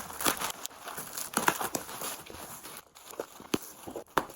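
Bubble wrap and packing paper being handled and pulled apart, with irregular crinkling and a few sharp crackles.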